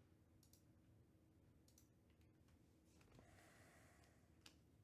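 Near silence, with faint clicks and a soft slide of a stack of trading cards being moved through the hands, and one slightly louder tick near the end.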